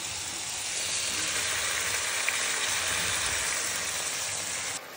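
Diced chicken breast sizzling as it fries in a pan with a little sunflower oil, a steady dense crackle that stops abruptly near the end.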